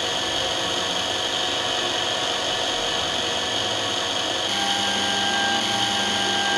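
Canton CT5412 lens-drilling machine's drill motor running steadily with a high whine while drilling a hole in an eyeglass lens. A lower hum joins in about two-thirds of the way through.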